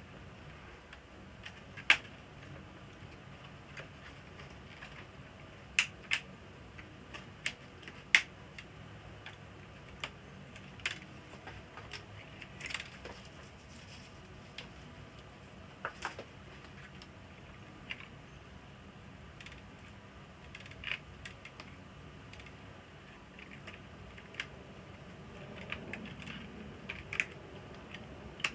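Irregular sharp clicks and clacks of small hard parts being handled, a dozen or so spread unevenly, several much louder than the rest.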